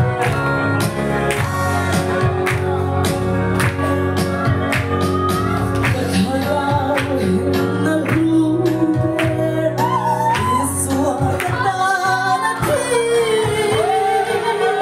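A woman singing a gospel song through a microphone and PA over amplified backing music, with rhythmic hand clapping from the congregation.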